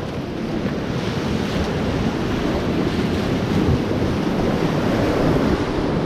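Whitewater rapids of the Páez River rushing steadily around an inflatable raft, growing a little louder, with wind buffeting the action camera's microphone.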